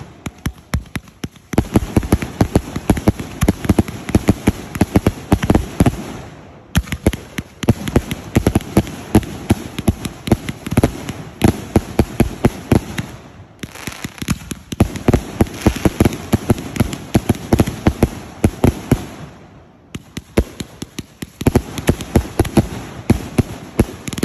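Aerial fireworks going off in quick succession: a dense run of rapid pops and bangs, easing off in brief lulls about six, thirteen and twenty seconds in before the next run starts.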